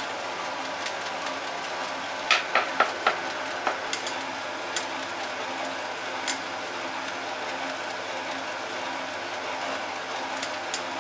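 Steady hum of bakery machinery, with a quick run of about four light knocks a couple of seconds in and a few single taps after, from dough pieces being handled on a steel-pan digital scale and worktable.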